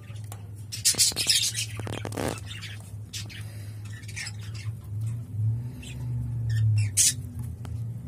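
Budgerigars giving short, harsh chirps and squawks, loudest about a second in, again around two seconds in and near the end, over a steady low hum.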